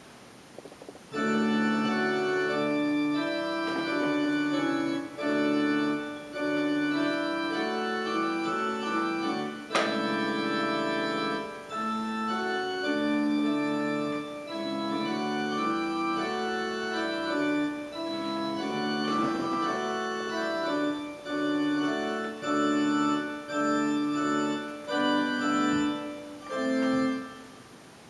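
Electronic keyboard set to an organ voice, playing a slow hymn in sustained chords. It starts about a second in and goes in phrases with short breaks between them.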